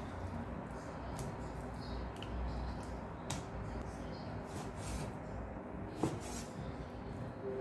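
Chef's knife slicing raw pork on a wooden chopping board: irregular soft cuts and taps of the blade on the board, with one sharper knock about six seconds in.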